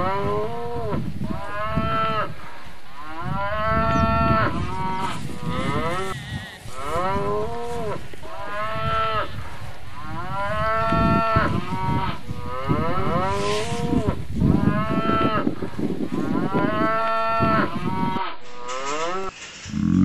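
Cattle mooing over and over, a long series of calls one every second or two, each rising then falling in pitch, over a low rumbling background; the calls stop near the end.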